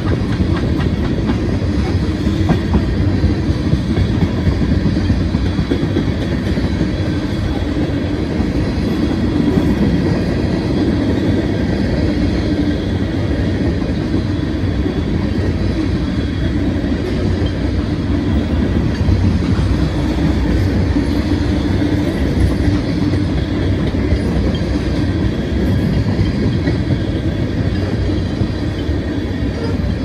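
Freight train's cars rolling past steadily, the continuous noise of steel wheels on the rails.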